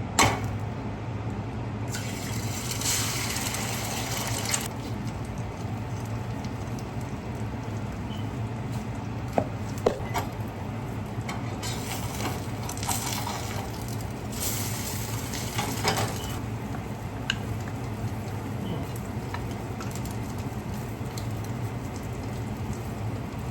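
Kitchen work at a counter: a tap running in short spells of a second or three, a few sharp clicks and knocks of dishes or utensils, and a steady low hum underneath.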